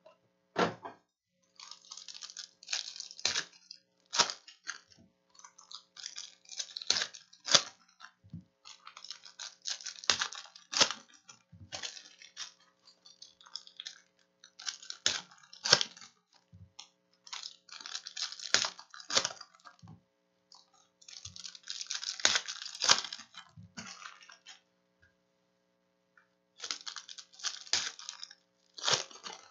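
Foil Panini Prizm basketball card pack wrappers crinkling and tearing as packs are ripped open, in repeated bursts of crackling with sharp snaps, separated by brief pauses while the cards are handled.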